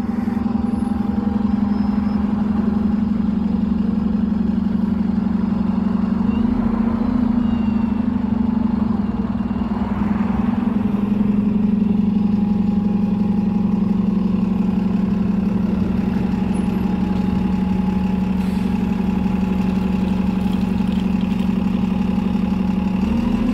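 Double-decker bus diesel engine idling close by with a steady low drone. Near the end the engine note rises as the bus pulls away.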